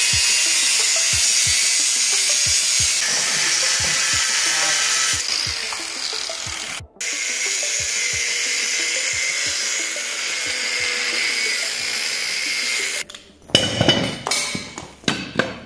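Angle grinder with a thin cutting disc slicing through a steel bracket held in a vice: a loud, steady, hissing grind that cuts out briefly about seven seconds in. Near the end the grinding stops, and there are several clanks of the cut steel being handled.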